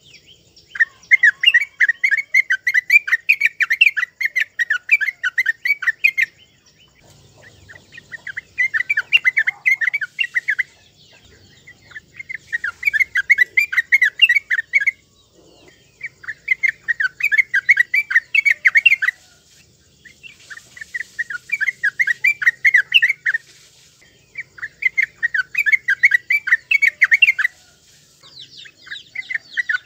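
Yellow-vented bulbul (trucukan) singing: repeated bouts of rapid chattering notes, each lasting a few seconds with short pauses in between.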